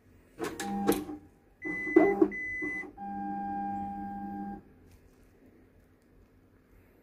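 Konica Minolta bizhub 363 copier starting up at the end of its warm-up: two mechanical clunks, then short whirring tones and a steady motor hum of about a second and a half that stops as the machine comes ready.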